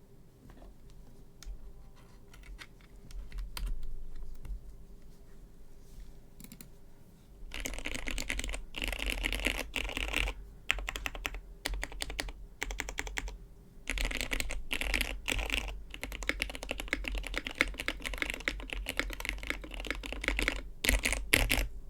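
Typing on a Besides Studios M-One mechanical keyboard with an aluminium plate and PE foam mod, fitted with lubed Cherry MX Hyperglide Black linear switches and ePBT keycaps. A few scattered keystrokes come first, then fast continuous typing starts about a third of the way in, broken by a couple of short pauses.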